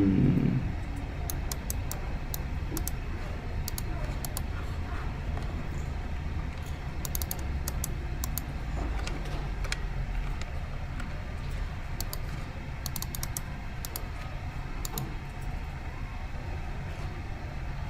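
Computer keyboard typing and clicking on a laptop: scattered, irregular clicks over a steady low hum.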